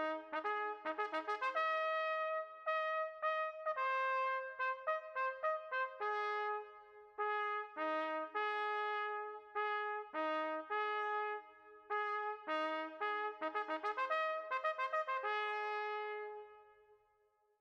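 Closing music: a trumpet playing a melody of short and held notes, fading out near the end.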